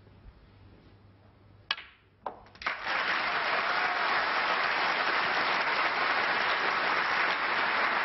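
A couple of sharp clicks of cue and snooker balls about two seconds in as the black is potted, then a steady round of audience applause for the century break.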